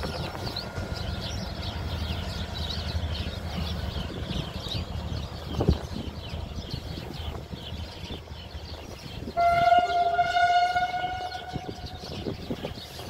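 Railway locomotive shunting away, its low rumble fading over the first few seconds, with a single knock partway through and birds chirping. About nine and a half seconds in, the locomotive sounds one horn blast of about two seconds.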